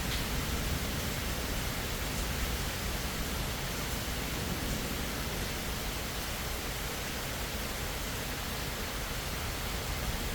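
Rain falling steadily, an even hiss that holds without change.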